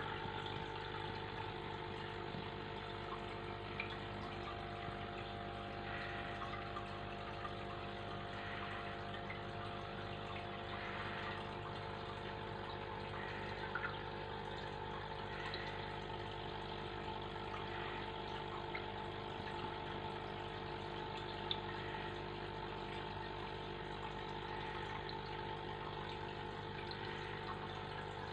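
Aquarium pump running with a steady hum over the even wash of moving water, with a few faint clicks.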